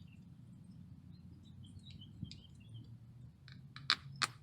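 Two sharp plastic clicks near the end as push pins are pressed home into the clips of a car's side molding trim, with a fainter click just before them.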